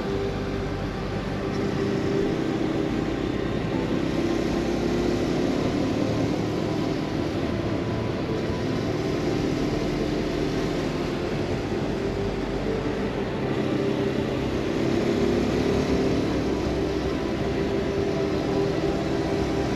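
Husqvarna Svartpilen 401's single-cylinder engine running at road speed, its note rising and falling with the throttle through the bends, over a steady rush of wind.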